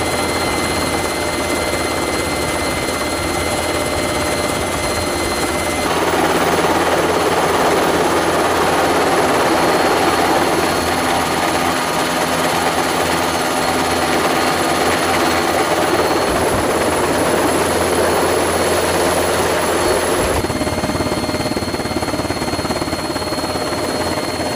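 Helicopter engine and rotor noise heard from aboard: a loud steady din with a thin high turbine whine over it. It grows louder and fuller about six seconds in and eases back near twenty seconds.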